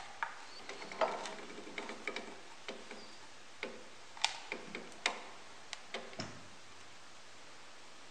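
Irregular light clicks, taps and brief scrapes of hand work at a drill press: a thin wooden stick dabbing epoxy, then a plywood plate being slid into place on the table. A few sharper knocks stand out, about a second, four and five seconds in.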